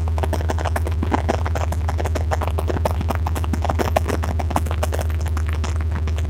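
Everglades airboat's engine and propeller droning steadily, a constant low hum, with a dense rapid crackling over it.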